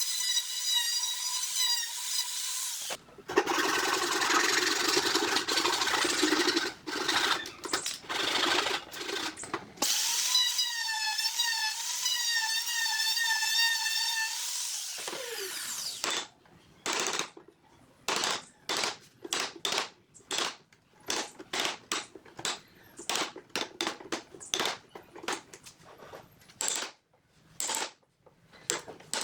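Handheld power tool, drill-like, whining at a steady pitch, then cutting into wood with a coarse grinding noise. It whines again and winds down with a falling pitch, followed by a long string of quick, irregular sharp knocks and taps.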